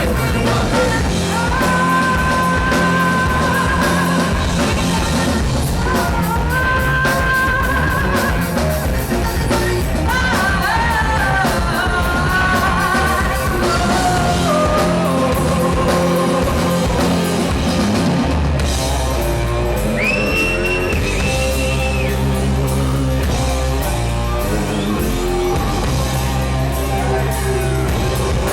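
A live band playing a heavy, rock-leaning track, with a lead vocal singing long held lines and some yells over it. The low end gets heavier about two-thirds of the way through.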